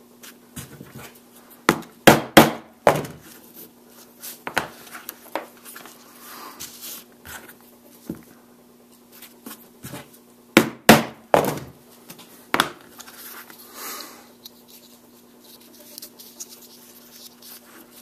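A hand-held round drive punch being struck to cut holes in a leather strap: a cluster of sharp blows about two seconds in, and another about eleven seconds in, with light handling clicks between.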